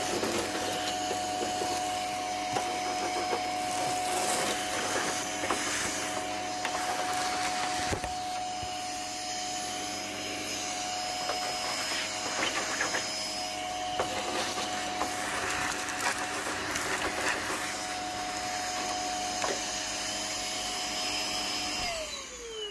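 Vacuum cleaner running steadily, its hose sucking up broken windscreen glass and debris from the car's interior with scattered clicks and rattles. Near the end it is switched off and the motor winds down with a falling whine.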